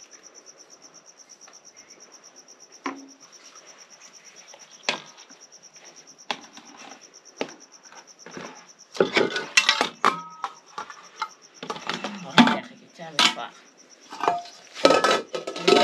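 A cricket trills steadily in a fast, even pulse throughout. Over it, a metal serving spoon knocks and scrapes against a cooking pot as food is dished into plastic bowls, a few scattered knocks at first, then busy, louder clattering of spoon, pot, bowls and lid through the second half.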